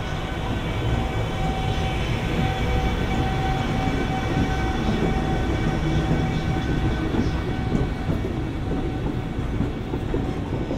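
JR Freight EF210 electric locomotive with the EH800 electric locomotive coupled behind it, moving on the rails: a steady rumble with a high steady whine over it.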